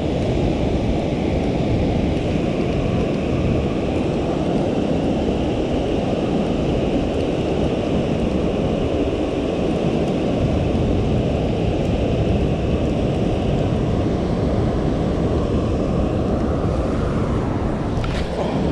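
Steady rushing of water pouring through the open spillway gates of a dam, mixed with wind buffeting the microphone. A brief click near the end.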